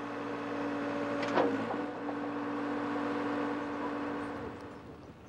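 Backhoe engine and hydraulics running with a steady hum and whine as the toothed bucket digs into dry soil, with a short sharp sound about a second and a half in. The sound fades out near the end.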